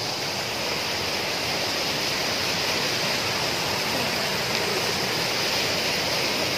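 Mountain stream and waterfall rushing over rocks: a steady, even sound of fast-flowing white water.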